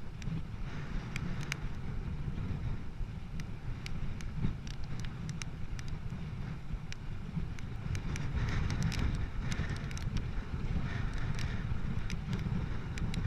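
Wind buffeting the microphone of a cyclist riding into a headwind, a steady low rumble with scattered sharp clicks throughout.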